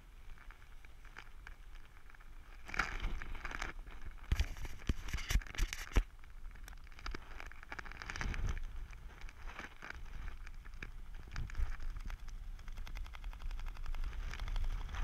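Wind rushing and buffeting against a body-mounted camera's microphone during parachute canopy flight: a low rumble with irregular gusty crackles, loudest about three to six seconds in.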